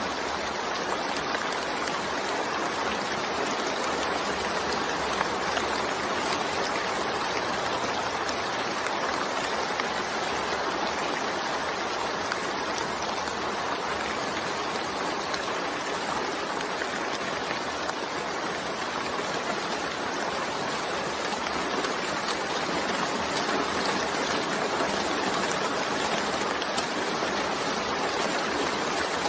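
Steady rainfall, an even, continuous hiss of many drops that neither rises nor falls.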